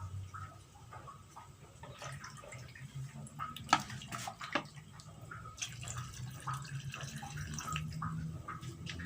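Rendang of jackfruit and chicken in coconut milk bubbling in the pan, with many small pops and blips over a low steady hum. A few sharper clicks come about four seconds in.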